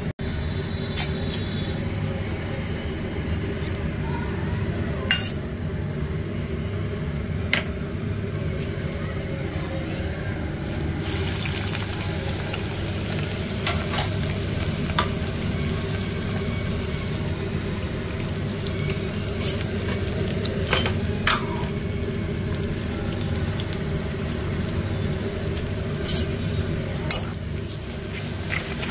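Food frying in a pan while a spoon stirs it, with scattered sharp clicks of the spoon against the pan over a steady low hum. The sizzle grows brighter about eleven seconds in.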